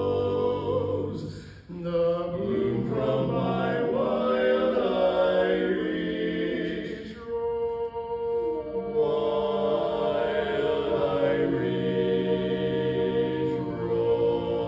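Barbershop quartet singing a cappella in four-part close harmony (tenor, lead, baritone and bass), holding long ringing chords. The singing breaks briefly about a second and a half in and again around the middle.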